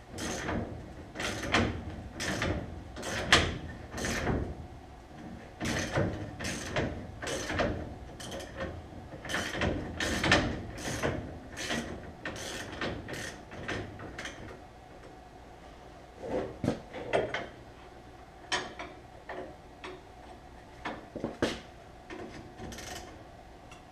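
Hand ratchet wrench working a bolt on a car's front suspension, clicking in short strokes about two a second, then slower and more scattered strokes in the second half.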